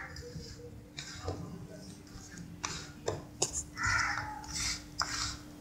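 A hand rubbing and squeezing a dry, crumbly mix of ground sesame, sugar and khoya in a steel plate: soft gritty rustles, with a few sharp clicks against the plate. A crow caws once, about four seconds in.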